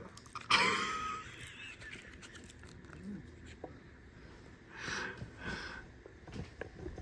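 A person's wheezing laugh breaks out suddenly about half a second in and trails off over a second, with a softer breathy burst about five seconds in.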